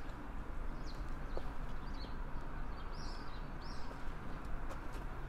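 Small birds chirping: a scatter of short, high calls over a steady low outdoor rumble.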